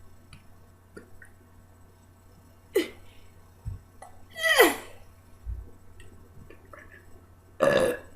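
A young woman's short throat sounds: a brief one about three seconds in, a louder one a second later that falls steadily in pitch, and a rough, breathy burst near the end.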